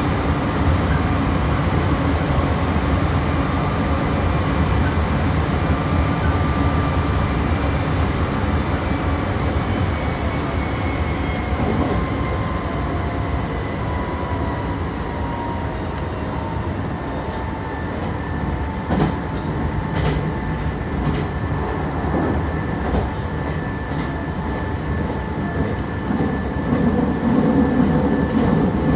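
Meitetsu 3150 series electric train running, heard from inside the car: a steady rumble of wheels on rail under the whine of the electric drive, whose tones slide lower around the middle. A run of clicks as the wheels pass rail joints comes in the second half.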